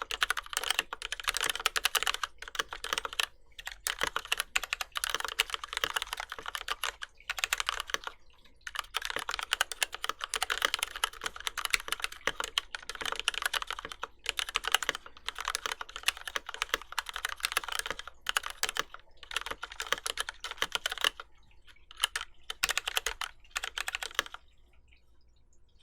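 Fast typing on a mechanical keyboard with lubed, linear retooled Cherry MX Black switches in an aluminium plate, under GMK keycaps: dense runs of keystrokes broken by short pauses, stopping near the end.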